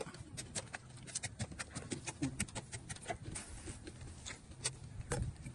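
Wooden pestle pounding in a mortar, quick uneven knocks several times a second, crushing chilies and peanuts for a papaya salad.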